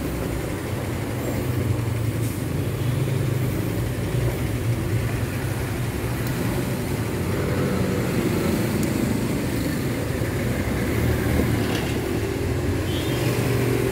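Electric fuel pump for a Honda Civic FD running on the bench off a battery, giving a steady low hum that is hardly audible.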